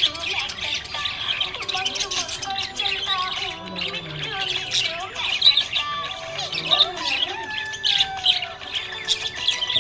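Budgerigar chirping and warbling: an unbroken, busy stream of short high chirps mixed with lower wavering chatter.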